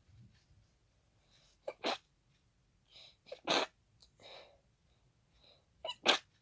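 A person sneezing three times, about two seconds apart, in a congested hay fever sneezing fit. Each sneeze is a short catch followed by the main explosive burst, with quick breaths between.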